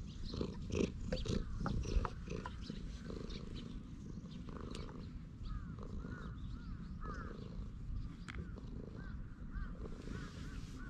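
Tabby cat purring steadily while being stroked. Rustling of a hand rubbing its fur is heard in the first two seconds.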